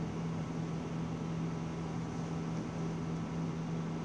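Steady low hum with a faint even hiss: background room noise with nobody speaking.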